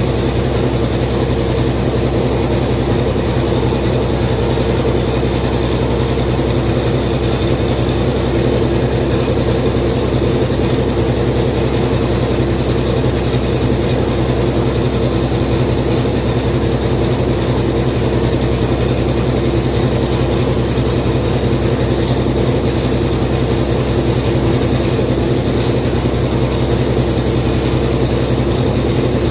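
Continental Aqua 16 kg washing machine in its spin cycle, the drum spinning at a steady speed with a loud, even hum.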